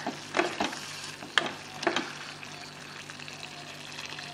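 Wooden spatula stirring greens in a metal pot, knocking against the pot four times in the first two seconds. Under it and after it, the watery greens simmer with a steady hiss.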